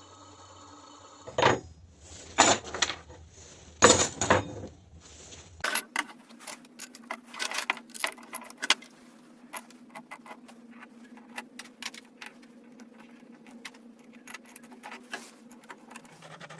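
Small metal parts or tools clinking and knocking on a bench. There are a few loud knocks in the first five seconds, then a long run of lighter clicks and taps.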